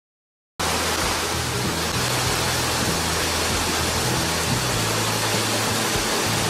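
Steady rushing of a waterfall, cutting in suddenly about half a second in, with low sustained background-music notes underneath that shift every second or so.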